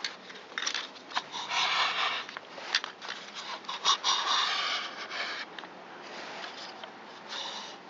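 Workbench handling noises from the blower's starter rope being worked and trimmed: scattered sharp clicks and several short scraping sounds.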